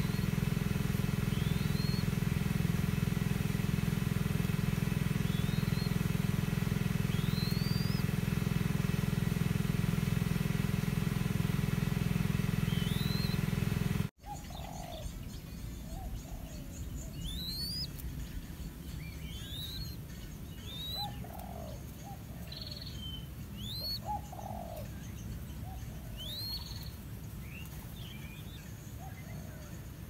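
A steady engine hum with a few small birds' rising chirps above it, cut off abruptly about halfway. After the cut there is only birdsong: repeated quick upswept chirps and short low calls.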